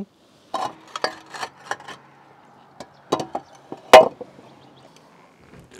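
Roof tiles and boots knocking and clattering as a man climbs down through an opening of lifted roof tiles. There is a run of light knocks in the first two seconds, a few more around three seconds in, and the loudest sharp knock about four seconds in.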